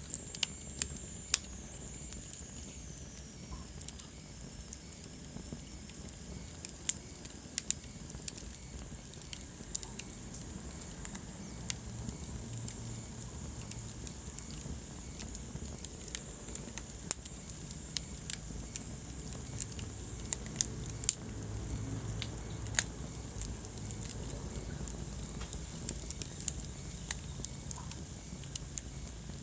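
Wood fire burning in a fireplace: a steady low rumble and hiss with sharp, irregular crackles and pops. A faint high whistle slides down in pitch over the first few seconds.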